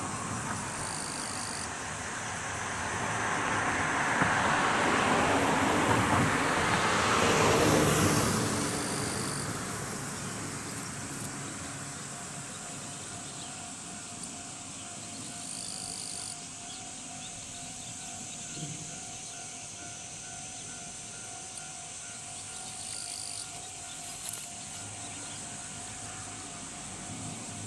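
Japanese level-crossing warning bell ringing in a rapid, steady beat while an Ohmi Railway 300-series electric train pulls out and approaches slowly. A broad rush of noise swells and fades in the first several seconds and is the loudest sound.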